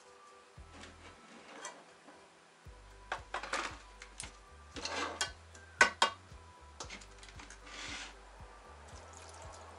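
Wooden spatula stirring chunks of winter melon in syrup in a metal saucepan: soft scrapes and a few sharp knocks against the pan, the loudest a pair about six seconds in, over faint background music.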